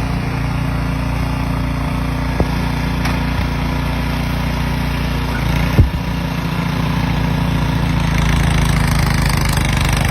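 An engine running steadily at an even speed, with a sharp knock about six seconds in.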